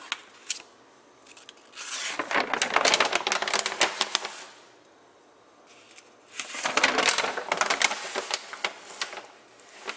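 Large paper plan sheets rustling and crackling as they are handled and turned over, in two bouts of two to three seconds each: one about two seconds in, the other about six and a half seconds in.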